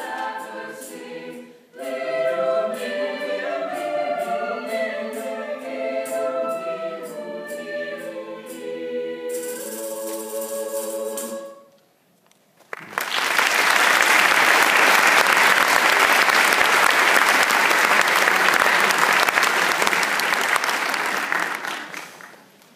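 Mixed high school choir singing in harmony, closing on a held final chord about twelve seconds in. After a brief silence the audience breaks into applause, which fades away near the end.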